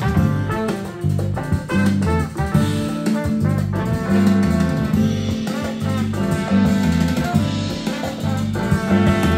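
Recorded music played back through a Rogers LS3/5A bookshelf speaker, with a strong bass line moving note to note under higher pitched instruments.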